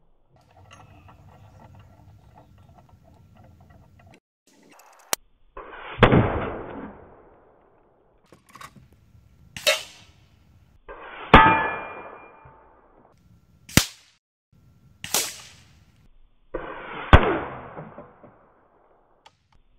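Air rifle shots striking steel reactive targets: about six sharp metallic hits a second or two apart, several of them clanging and ringing briefly.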